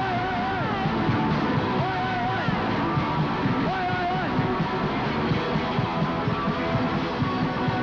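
Punk rock band playing live: electric guitars, bass and drums going full tilt. A singer holds a short shouted note three times, about two seconds apart, in the first half.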